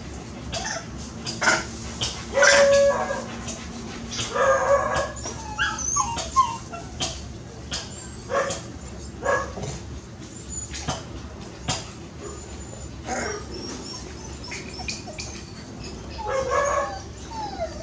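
Dogs barking, a string of short sharp barks with a few longer pitched cries among them.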